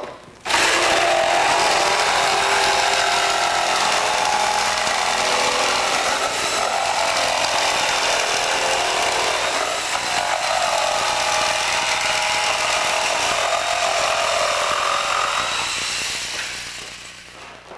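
Corded saber saw cutting out a ply-foam wing rib, running steadily as its blade chews through the panel. It starts about half a second in and dies away near the end.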